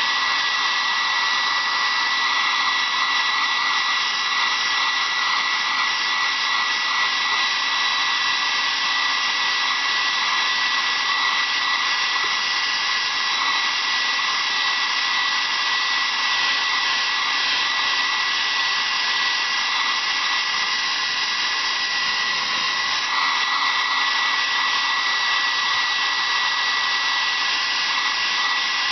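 Handheld blow dryer running steadily, a constant rush of air with a steady high-pitched whine in it.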